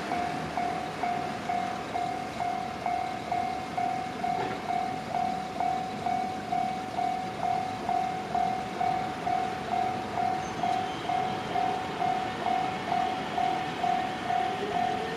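Japanese railway level-crossing warning bell ringing steadily, a single ding repeating a little over twice a second. A train running by is heard under it.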